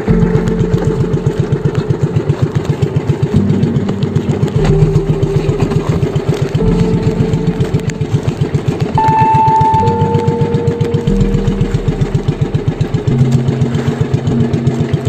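A small boat's engine running steadily with a fast, even pulsing beat, its pitch shifting slightly a few times.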